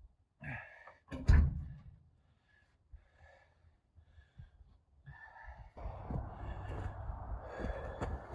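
A man breathing hard and gasping after heavy lifting, with a single heavy thump about a second in. A steady rushing noise starts a little past halfway.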